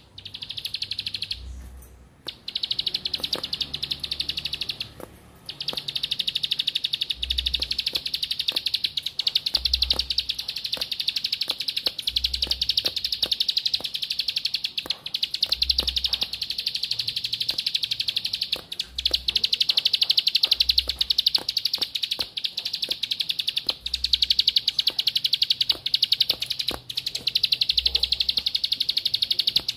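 Ciblek (prinia) singing a high, rapid, almost unbroken trill, with a few short breaks in the first five seconds: the continuous 'ngebren' song that bird keepers prize.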